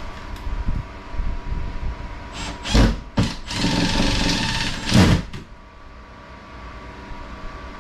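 Cordless drill/driver driving screws to fasten a Tesla wall charger's mounting bracket to the wall: two short bursts, then one longer run of about two seconds.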